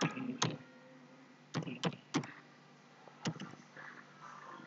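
Computer keyboard keys being typed: about half a dozen separate clicks at an uneven pace.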